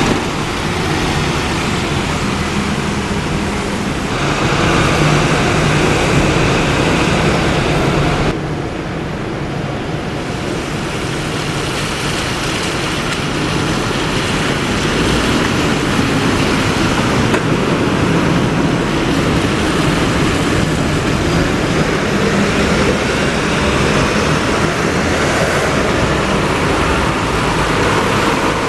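Diesel city buses running as they pull away and pass close by, over steady road traffic. The level rises about four seconds in and drops abruptly about eight seconds in.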